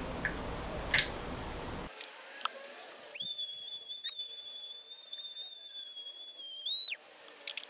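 A high, steady whistled note held for about four seconds, starting about three seconds in and ending with a slight upward flick. Before it comes a rustling hiss with a sharp click about a second in.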